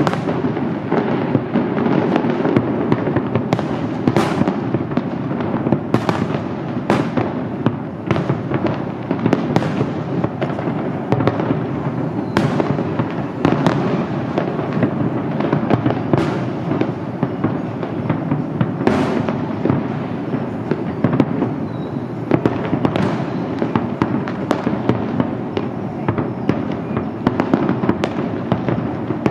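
Aerial fireworks display: a dense, unbroken rumble of many shells bursting, with a sharp crack standing out every second or so.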